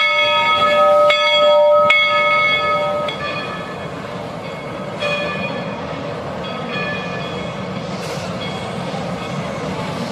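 Locomotive bell ringing, struck about once a second, loud for the first three seconds and then fainter, over the steady rumble of the train rolling along the track.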